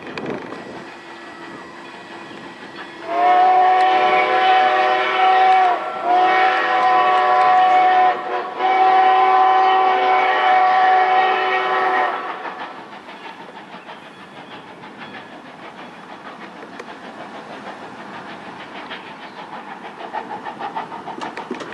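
Steam whistle of a 1924 Baldwin 2-10-0 Decapod locomotive blowing three blasts, the last the longest, over the steady running noise of the train pulling away.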